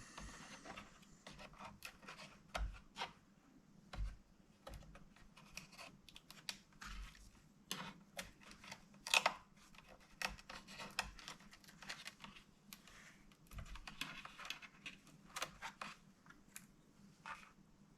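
Small irregular plastic clicks and taps from handling a Dell Inspiron 15 3000 series laptop and tools while taking it apart, a few a second with several louder knocks.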